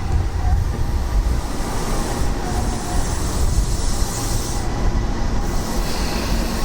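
Tobu electric commuter train set 11640F+11440F running along the track with a steady low rumble.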